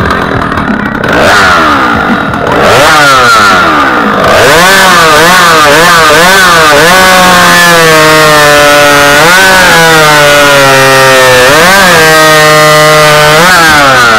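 Stock two-stroke chainsaw blipped twice, then held at full throttle through a timed cut. Its pitch repeatedly sags under the load of the cut and climbs back.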